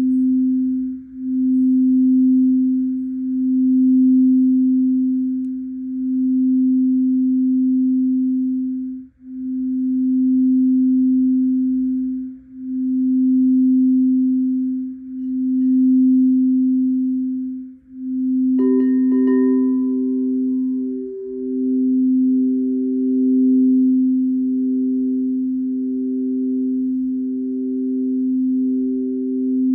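Singing bowls: a low steady tone that swells and fades every two to three seconds. Past the middle a second, higher bowl is struck and rings on with a quicker pulse alongside the first.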